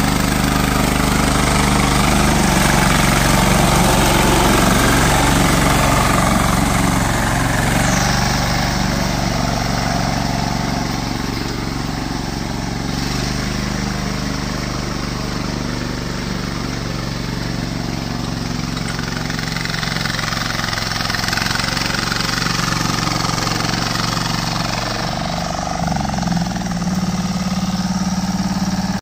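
The engine of a patpat two-wheel tractor running steadily as it pulls its trailer, with a slight change in engine pitch near the end.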